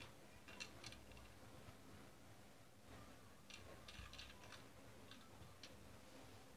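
Near silence: room tone with a few faint, scattered soft clicks and ticks.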